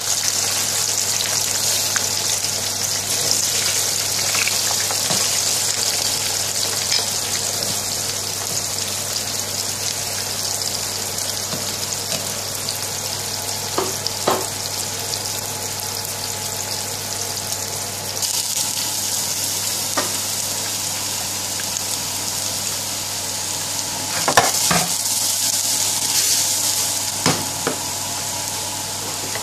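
Potato chips deep-frying in a pan of hot oil: a steady, loud sizzle. A metal slotted spoon knocks against the pan a few times.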